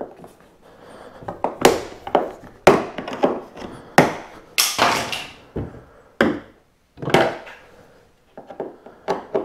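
Hard plastic knocks and clacks as a flathead screwdriver pries at a kayak's side carry handle and the parts bump against the plastic hull. There is a string of sharp knocks, a longer scrape about halfway, and lighter clicks near the end.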